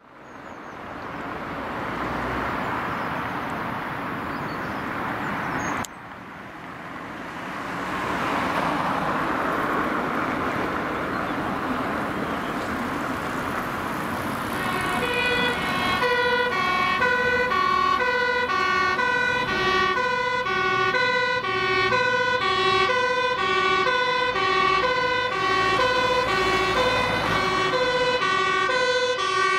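Dutch Volvo fire engine's two-tone siren sounding about halfway in, switching between a high and a low note about twice a second, with the truck's diesel engine rising beneath it toward the end. Before the siren there is a steady rushing noise.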